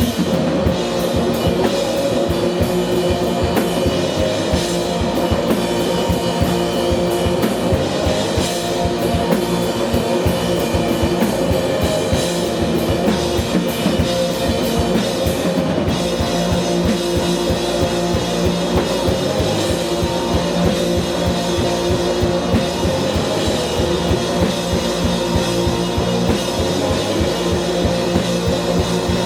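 Indie rock band playing live: a drum kit keeping a steady beat under guitars and bass, continuous and loud.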